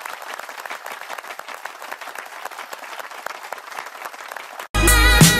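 Applause, many hands clapping in a dense, even patter. It cuts off suddenly near the end as loud music with a beat comes in.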